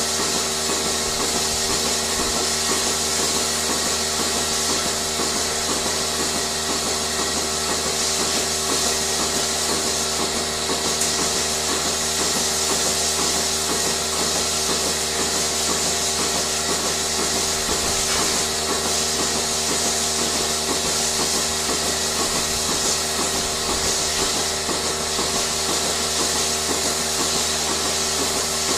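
Dairy farm machinery running steadily, with several constant tones and a fast, even pulsing rhythm.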